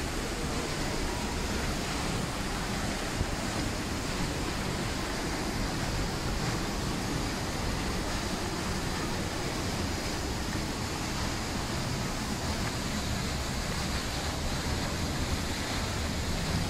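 Peričnik waterfall, a tall single plunge, rushing steadily and evenly as the water falls onto the rocks below.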